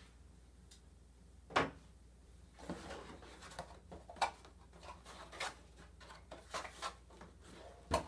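Cardboard box being flattened by hand: one sharp snap about one and a half seconds in, then a long run of irregular crackles and creaks as the cardboard is folded and pressed flat.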